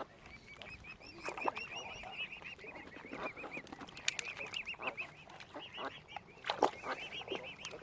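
Young mute swan cygnets peeping: a continuous run of rapid high peeps, several a second. A few louder short waterfowl calls break in, the loudest near the end.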